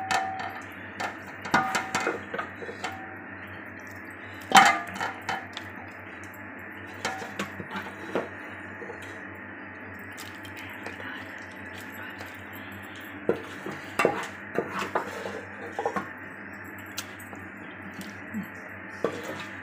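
A spoon scraping and knocking against the side of a metal pot while spreading beef masala over a layer of parboiled rice, with irregular clinks and knocks, the loudest about four and a half seconds in, over a steady background hiss.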